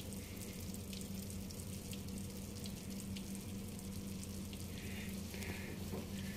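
Fresh-baked bibingka still sizzling faintly in its hot metal cake pan, a steady fine crackle, over a constant low hum.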